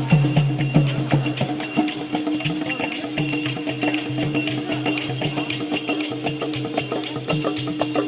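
Traditional folk music: fast, steady drumming and jingling, tambourine-like percussion over a held droning tone.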